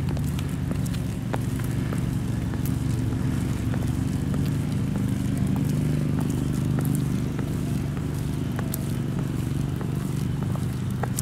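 High-heeled boots clicking on a paved path at a walking pace, sharp separate heel strikes, over a steady low hum.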